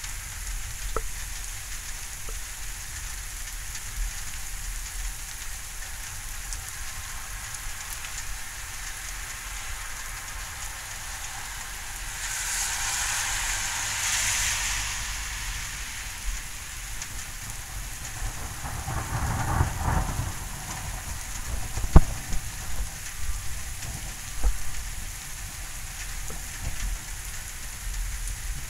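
Steady rain falling during a thunderstorm, its hiss swelling briefly near the middle. Thunder rumbles low about two-thirds of the way in, and a single sharp tap follows shortly after, the loudest sound.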